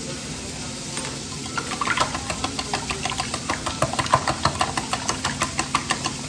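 Small wire whisk beating eggs in a glass bowl, its wires clicking against the glass in a fast, even rhythm of about five strokes a second that starts about a second and a half in. A steady low hum runs underneath.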